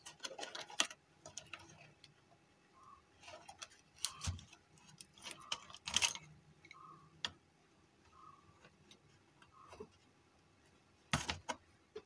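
Scattered clicks and light knocks of wire-harness connectors being worked loose and unplugged from a home theatre amplifier's front panel board.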